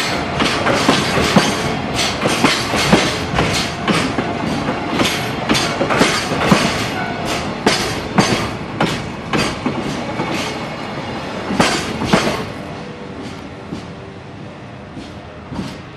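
Freight train's container flatcars rolling past close by, their wheels clacking over rail joints in uneven clusters over a steady rumble. The last wagon goes by about twelve seconds in and the clatter fades away.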